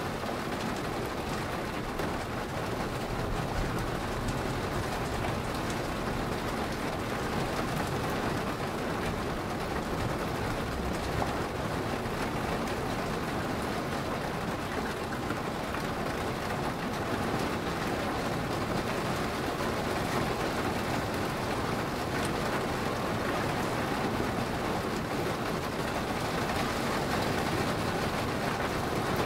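Steady rain falling in a thunderstorm: an even rushing hiss with a low rumble underneath, getting a little louder near the end.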